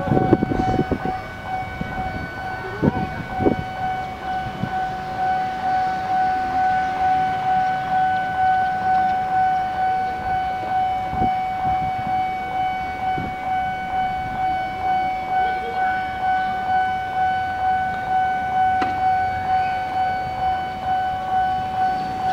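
Electronic railway level-crossing warning alarm sounding a steady high tone that pulses about twice a second, the signal that a train is approaching.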